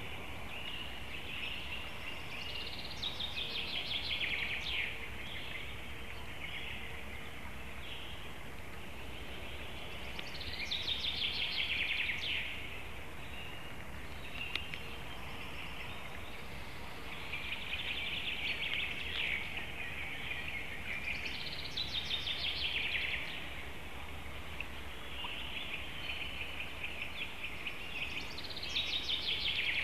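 A songbird singing the same short phrase over and over, each about two seconds long and ending in a quick downward run, about five times, several seconds apart, over a steady faint background hum.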